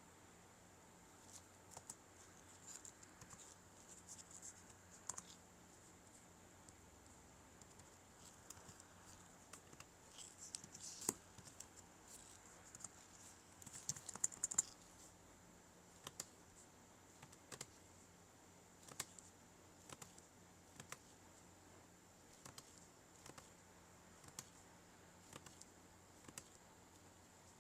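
Faint scattered clicks and taps, as of working a laptop's keys or touchpad: clustered in the first half, then single clicks about once a second.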